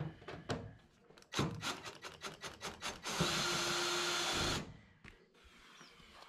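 Ryobi cordless drill-driver running steadily for about a second and a half, driving a screw into the washer's lower front panel. Before it comes a string of clicks and knocks from handling the drill and panel.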